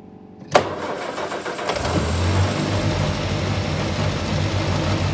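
A sharp knock, then a vehicle engine turns over and catches about a second and a half later, settling into a steady, low, pulsing run.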